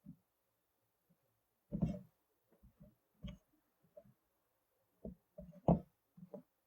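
Scattered soft knocks and thumps of kitchen handling, irregular and mostly dull, with two louder knocks about two seconds in and near the end.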